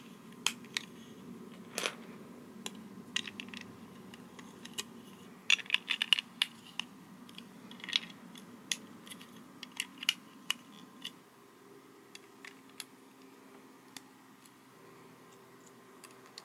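LEGO plastic bricks clicking and clattering as pieces are handled and pressed together: irregular sharp clicks in quick clusters, thinning out to a few scattered clicks near the end.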